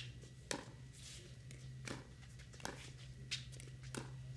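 Pickleball paddles hitting the plastic ball in a net rally of soft shots: five sharp pops, the last four about two-thirds of a second apart.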